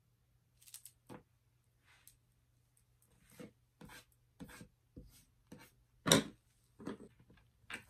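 Pliers and small craft items handled on a wooden tabletop: a string of about a dozen short knocks, scrapes and rustles, the loudest a knock about six seconds in.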